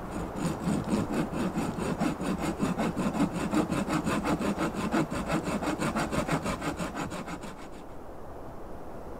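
Wood being sawn by hand in a fast, even rhythm of strokes, stopping a little before eight seconds in.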